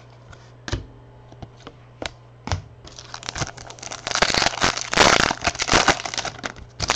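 Crinkling and crackling of a foil trading-card pack wrapper being torn open and handled, dense from about three seconds in, after a few scattered light clicks.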